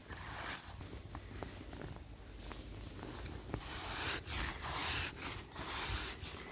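Irregular rustling and swishing, coming faster and louder in the second half, with a few light clicks.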